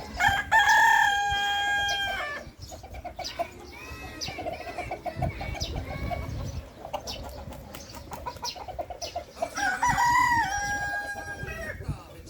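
A rooster crowing twice, each crow a long held call that drops at the end, about nine seconds apart, with softer calls in between.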